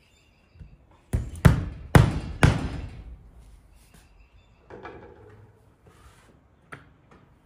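A hammer striking a nail four times in quick succession, driving it into a wooden board on the wall, each blow ringing briefly. Near the end comes one small click as something metal is hung on the nail.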